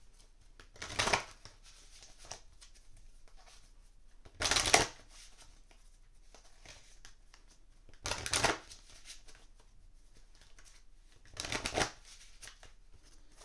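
A deck of oracle cards being shuffled by hand in four short bursts, a few seconds apart.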